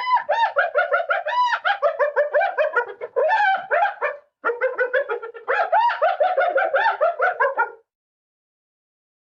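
Spotted hyena laughing: two long runs of rapid, high-pitched giggling notes, each note rising and falling, about six a second, with a brief break after about four seconds.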